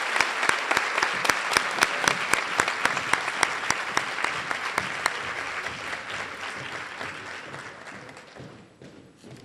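Audience applauding, with one clapper near the microphone standing out at about three claps a second; the applause dies away over the last few seconds.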